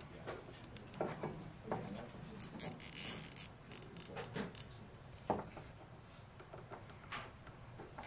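Plastic zip ties being threaded through the holes of an aluminium U-channel and pulled through their locking heads. Scattered clicks and rattles of plastic and metal, with a short burst of rapid zip-tie ratcheting about two and a half seconds in.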